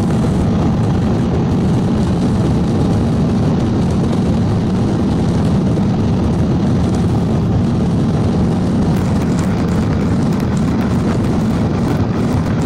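Jet airliner's engines and rolling wheels heard from inside the cabin: a steady, loud low rumble that holds even throughout.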